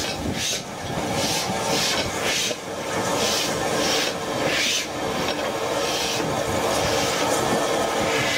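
Steam locomotive working, its exhaust chuffing in regular hissy beats a little more than once a second, over a steady hum.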